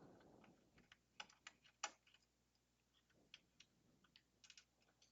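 Faint, irregular small clicks and ticks of a hand screwdriver working on one of the power supply's mounting screws, with a short soft rustle at the start.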